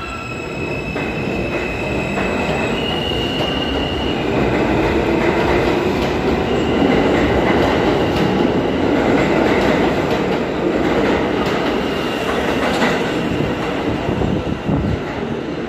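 R160 subway train pulling out of the station: its propulsion gives a whine that steps up in pitch during the first few seconds, then the rumble and rattle of the cars' wheels on the rails grows louder as they pass. A few sharp clacks from the rails come near the end.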